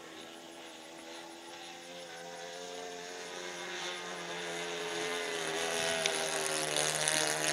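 RC Ugly Stick model airplane's motor and propeller droning steadily in flight, growing louder as it comes closer overhead, its pitch bending slightly as it passes nearest near the end.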